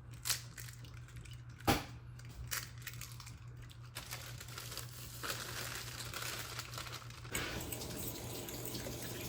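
Two sharp knocks, about a second and a half apart, as two eggs are cracked against a bowl for cornbread batter. A steady crinkling rustle follows about four seconds in.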